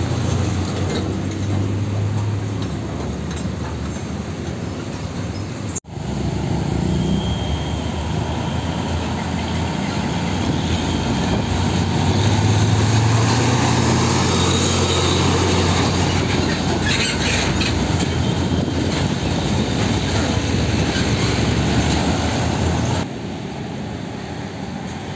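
Heavy diesel trucks driving past close by, with a low engine drone and road noise that swell loudest as a Hino dump truck comes through about twelve seconds in. The sound drops out abruptly for a moment about six seconds in and turns quieter near the end.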